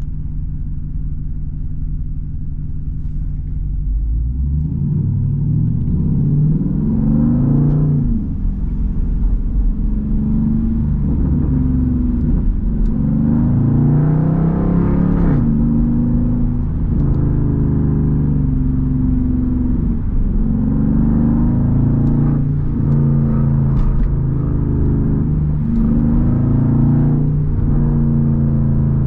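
Straight-piped Jeep Grand Cherokee SRT V8 exhaust heard from inside the cabin: a low steady rumble for the first few seconds, then the engine pulls away under throttle, rising in pitch through a few upshifts before settling into a steady cruise. A few short pops come through along the way.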